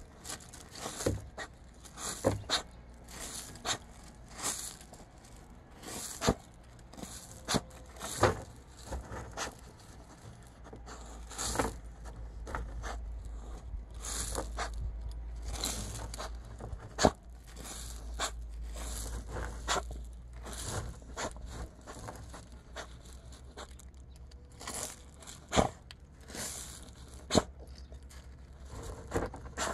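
A dog digging in loose gravel, the stones crunching and scraping in irregular bursts throughout.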